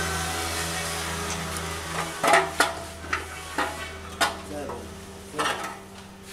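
Metal tools and parts clinking as a socket wrench and bolts are handled while a bracket is unbolted from a gearbox casing: half a dozen sharp clinks from about two seconds in. A steady low hum runs underneath at first and fades out.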